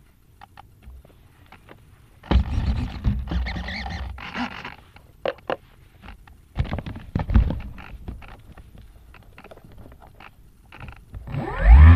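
Handling noise on a model plane's onboard camera: scattered clicks, then two stretches of knocking and rubbing as the airframe is moved and picked up. Near the end a pitched tone starts and rises quickly.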